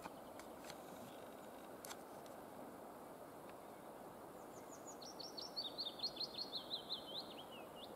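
A small bird sings one song about four and a half seconds in: a quick run of high notes stepping down in pitch and ending lower, lasting about three seconds. A steady hiss of outdoor background noise runs underneath.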